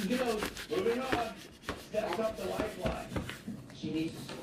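A plastic squeegee is rubbed firmly over self-adhesive vinyl film on a tabletop, smoothing the film down. It scrapes in short repeated strokes with squeaky pitched tones.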